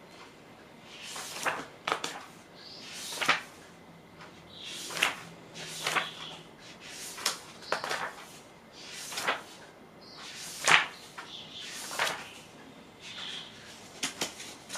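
Magazine pages being turned one after another: a swish of paper ending in a crisp snap, about every second or so.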